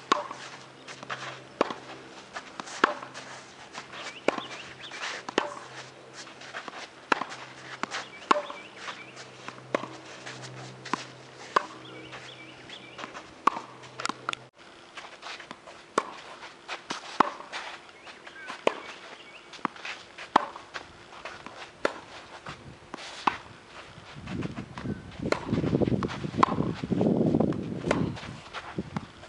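Tennis rally on a hard court: a steady run of sharp pops from balls struck by racket strings and bouncing on the court, with scuffing shoe steps between them. Near the end a loud rushing noise swells in for a few seconds.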